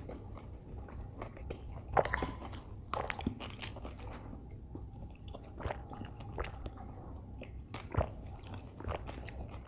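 Close-miked chewing of a toasted potato sandwich, with scattered crunches and wet mouth clicks, the loudest about two, three and eight seconds in.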